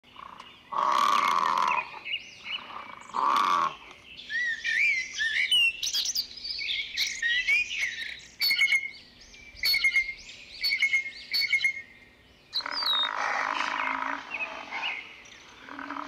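Animal sounds from a compilation. Two short loud calls come in the first four seconds, then a bird chirps and whistles in quick, wavering notes with sharp clicks from about 4 to 12 seconds, then a longer loud call follows near the end.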